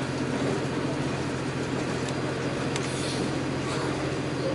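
Running noise inside a diesel railcar on the move: a steady engine drone under a wheels-on-rails rumble, with a few faint clicks.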